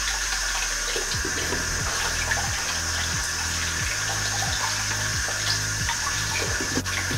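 Kitchen tap running steadily into a bowl of water while green ume plums are rubbed and rinsed by hand, the water splashing over the fruit.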